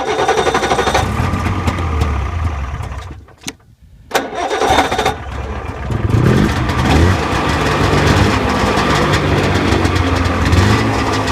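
Polaris Indy Trail snowmobile's 488 fan-cooled two-stroke engine starting and running. It dies after about three seconds, catches again about a second later and keeps running, with the revs rising briefly a few seconds after the restart.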